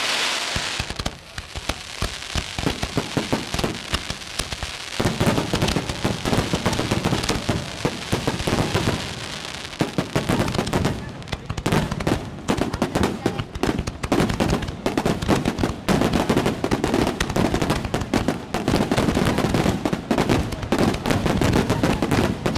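A fireworks display: a dense, unbroken run of bangs and crackling that grows louder about five seconds in.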